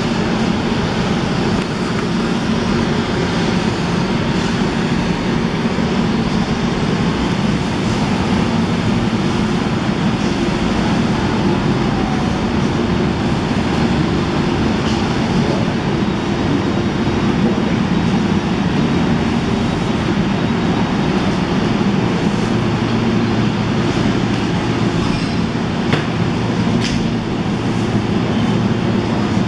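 Trenord passenger train running beside the platform, a continuous steady rumble and hum. A couple of light clicks near the end.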